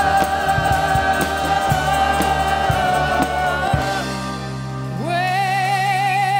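Live band with several singers holding a long harmonised note over drums and bass. About four seconds in the drums stop, and a second later a voice takes up a long note with vibrato over a held low chord.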